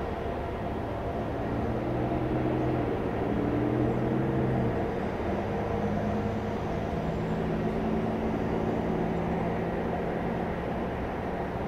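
Four PS-90A turbofans of an Ilyushin Il-76TD-90 running at low taxi power as the jet turns on the runway. A steady jet rumble with humming engine tones that shift in pitch during the first five seconds, then hold steady.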